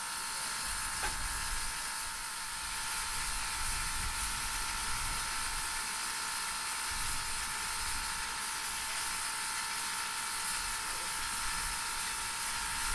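Steady steam hiss from Soo Line 1003, an ALCO 2-8-2 Mikado steam locomotive, with an uneven low rumble underneath.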